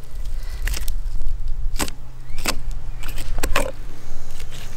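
Filleting knife ticking and scraping along a barramundi's backbone and rib bones, about six short sharp clicks at uneven intervals. A low steady rumble runs underneath.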